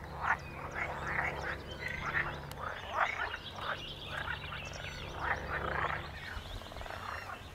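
Frogs croaking in a pond chorus: a continuous run of short, rasping calls, about two or three a second.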